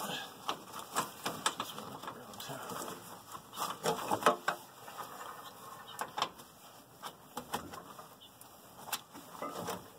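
Metal hydraulic hose couplers being worked onto a garden tractor's quick-coupler fittings: an irregular run of clicks and knocks as the sleeves are pulled back and the couplers pushed in to lock, loudest about four seconds in.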